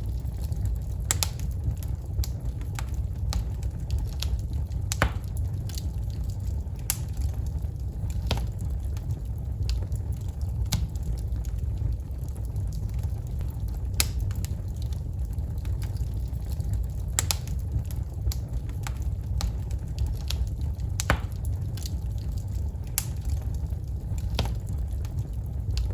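Wood fire burning in a fireplace: logs crackling with irregular sharp pops and snaps over a steady low rumble of the flames.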